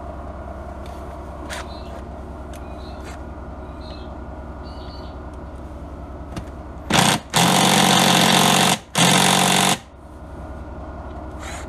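Cordless power driver running in three bursts, a short blip then two runs of about a second and a half and a second, as it undoes a screw on the underside of a Honda generator. A steady low hum runs underneath.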